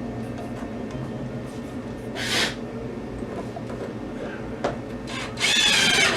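Power drill driving screws into a 2x4 stud: a short burst about two seconds in, then a longer, louder run near the end.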